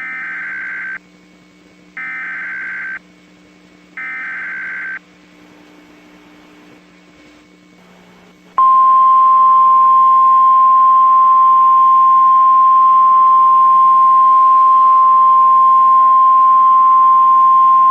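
NOAA Weather Radio Emergency Alert System alert: three one-second bursts of buzzy SAME header data tones two seconds apart, then a few seconds of faint hum and hiss. About halfway through, the loud, steady single-pitch warning alarm tone begins and holds.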